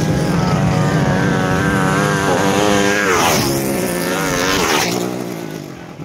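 Dirt bike engines racing at full throttle on a dirt straight, the note climbing as they come on. It drops sharply as a bike passes close, about three seconds in, and again about five seconds in.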